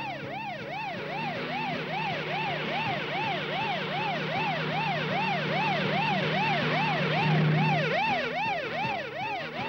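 Cartoon siren sound effect warbling up and down quickly, about three times a second, over a low steady drone. The drone is loudest about three-quarters of the way in, then drops away.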